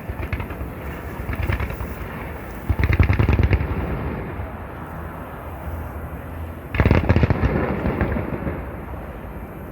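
Fireworks going off: rapid crackling salvos of sharp bangs over low booms, the loudest volleys about three seconds in and again near seven seconds, dying away toward the end.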